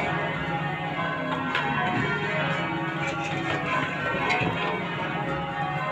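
A ring of ten heavy church bells, Simpson-tuned with a 28 cwt tenor in C#, being change-rung by a band: a steady succession of strikes whose long ringing tones overlap one another.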